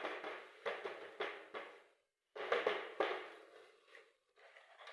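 A cage part being knocked and shaken to empty out leftover bird seed and droppings: about six sharp knocks with rattling debris in the first three seconds, then a few fainter ones near the end.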